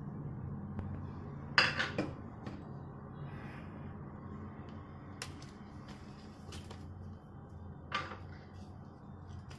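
A few light knocks and clatters of a steel mixing bowl and a small plastic bowl being handled and set down on a wooden board, the sharpest about one and a half seconds in and another near the end, over a steady low hum.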